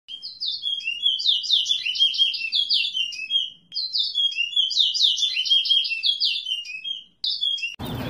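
A songbird singing a fast, twittering song of quick high notes in two long phrases with a brief gap between them, then a short final burst. Near the end, crowd noise and voices cut in.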